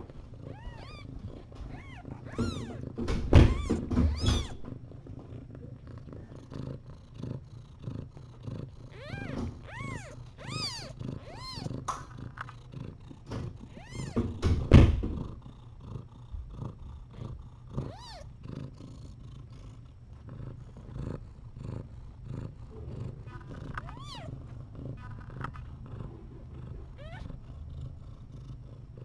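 Mother cat purring steadily while her kittens nurse, with clusters of short high squeaks. Two loud thumps stand out, about three and fifteen seconds in.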